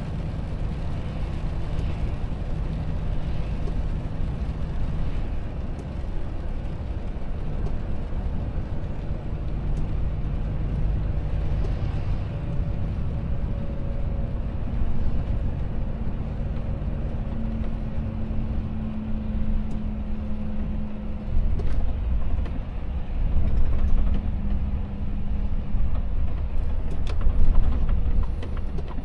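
Volvo FH truck running on a wet road, heard from inside the cab: a steady low engine drone with tyre and road rumble, the engine note stepping higher about halfway through. A few sharp knocks near the end.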